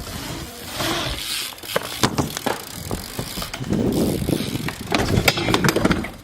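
BMX bike clattering, with many sharp clicks and knocks over a noisy rush; busiest from about four seconds in.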